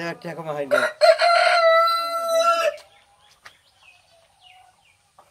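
A rooster crowing once, a long, loud, steady call lasting nearly two seconds from about a second in, followed by faint scattered clucks from the hens.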